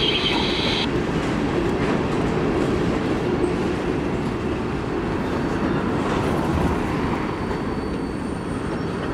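Freight cars rolling past with a steady rumble of steel wheels on rail. A high wheel squeal stops about a second in. The noise eases slightly near the end as the last car goes by.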